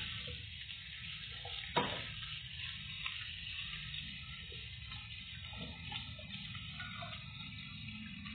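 Chicken pieces with shallots and garlic frying in a stainless steel pan, a steady sizzle. A metal spatula knocks sharply against the pan twice in the first two seconds.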